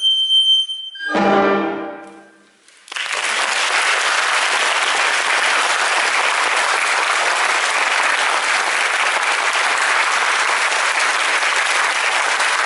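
A recorder ensemble ends its piece: a high held note, then a final chord that dies away. About three seconds in, an audience breaks into steady applause that runs on.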